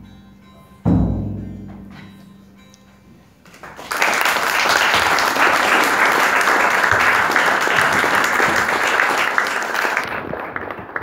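A single low musical note rings out about a second in and slowly fades away. Then, from about four seconds in, an audience claps steadily, the applause thinning out near the end.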